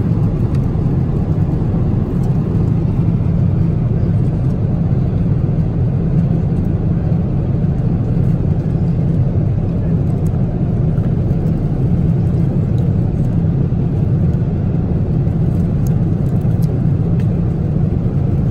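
Steady cabin noise of a jet airliner cruising at 35,000 feet: an even, unbroken rush of engine and airflow noise, heaviest in the low range.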